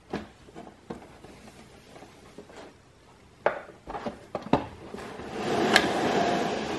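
Clear plastic model-car display cases being handled on a wooden table: a few light clicks at first, then a cluster of sharper knocks as the cases touch and bump each other. In the last second or two comes a longer scraping slide as the cases are pushed across the wood, with one sharp click in it.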